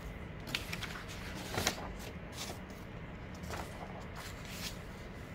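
Paper rustling and crinkling as a printed photo sheet is pressed flat by hand and lifted off the watercolor paper beneath. It comes as a series of short scratchy rustles, the loudest about a second and a half in.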